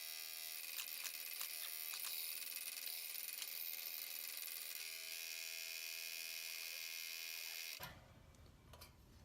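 Electric saw running steadily while cutting a piece of purpleheart wood, then shutting off suddenly about eight seconds in.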